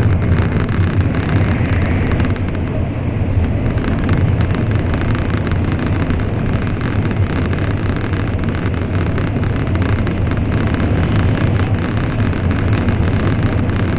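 Steady running noise inside the passenger cabin of an N700 series Shinkansen travelling at speed: a constant low rumble under a rushing noise.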